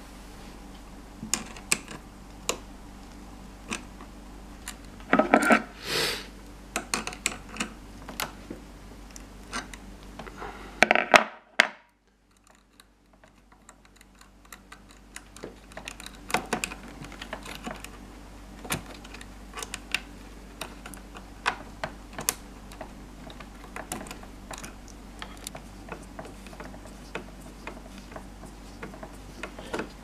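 Small clicks, taps and scrapes of a screwdriver and fingers working the screws of a plastic terminal block inside a vacuum cleaner's housing, loosening the clamps to free the power-cable wires. Louder clattering bursts come about five seconds and eleven seconds in, and the sound drops out briefly just after.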